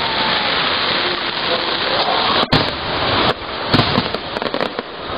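Aerial fireworks display: shells bursting with dense, continuous crackling and several sharp bangs in the second half, with a brief dropout about halfway through.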